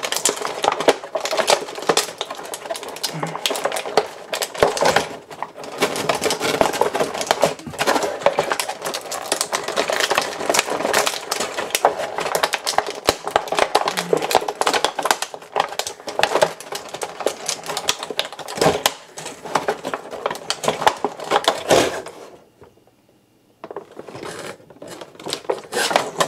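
Cardboard and plastic toy packaging being handled and opened: a dense run of rustling, crinkling and quick clicks. It stops briefly a few seconds before the end, then starts again.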